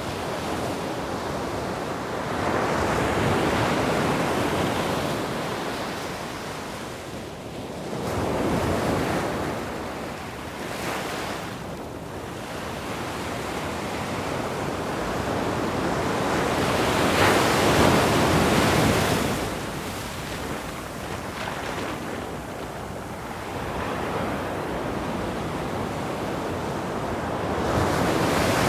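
Sea waves washing onto a shore, a continuous rushing surf that swells and subsides in slow surges every several seconds, the largest about two-thirds of the way through.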